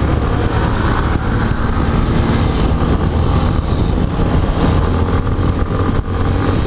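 Yamaha XTZ 250 Ténéré's single-cylinder four-stroke engine running steadily as the motorcycle rides along.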